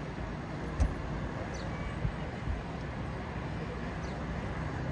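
Steady outdoor city background noise: a low hum of distant traffic. A few short low thumps hit the microphone, about a second in and twice around two seconds in.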